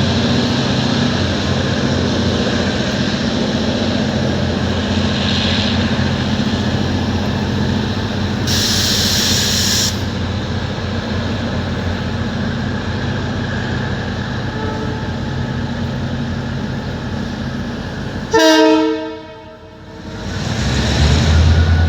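Abu Qir commuter train running, a steady rumble with a low engine hum and a short hiss about 9 s in. A loud horn blast lasting about a second sounds about 18 s in, and the engine tone rises again near the end.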